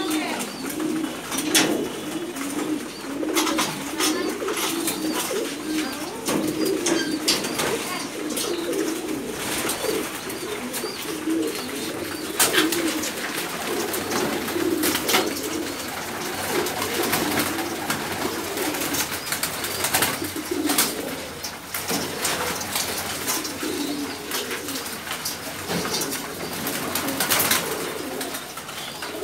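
Many caged domestic pigeons cooing together in a continuous, overlapping low murmur, with scattered sharp clicks and taps throughout.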